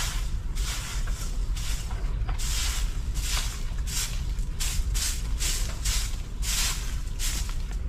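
A straw broom sweeping a dirt path, swishing in short strokes about twice a second, over a steady low rumble.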